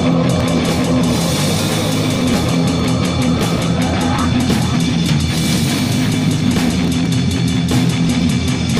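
Noisecore/grind metal recording: heavily distorted guitar over fast, pounding drums. A harsh noisy layer in the upper middle drops out about four seconds in.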